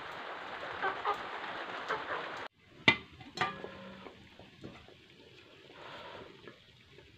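Wood cooking fire and a pot of corn boiling: a steady hiss, then two sharp clanks about three seconds in, then quieter bubbling from the open pot.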